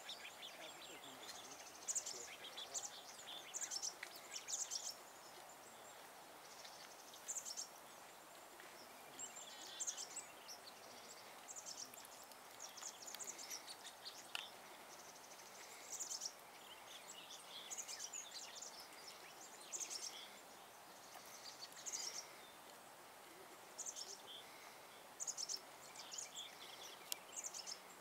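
Red squirrel nibbling and cracking birdseed at close range: short, faint crackly crunches in quick little clusters every second or two, over a low steady outdoor hiss.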